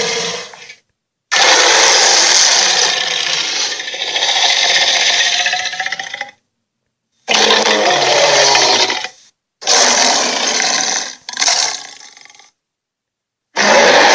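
Dragon creature sound effects: five rough, noisy bursts, lasting from about one to five seconds each, separated by dead silence.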